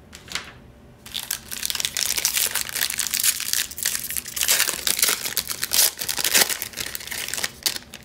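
Foil wrapper of a Topps 2021 Series 1 baseball card pack being torn open and crumpled by hand: a dense crinkling that starts about a second in and stops near the end.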